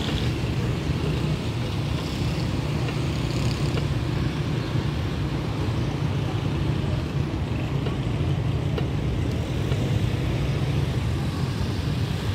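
Steady low rumble of road and engine noise with no breaks.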